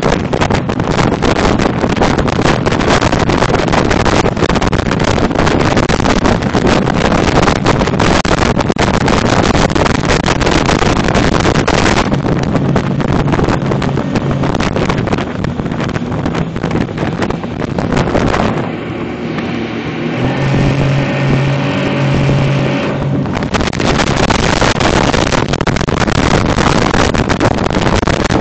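Wind buffeting a phone microphone on a speeding RIB, over the steady hum of the boat's engine. About two-thirds of the way through, the wind rush eases for a few seconds and the engine's even drone stands out before the wind returns.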